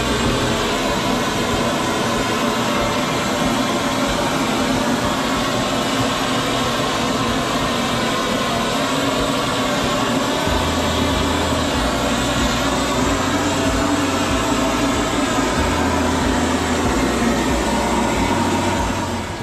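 Propane torch fed from a gas cylinder, burning with a steady rushing noise as its flame singes the hair off a hanging goat carcass.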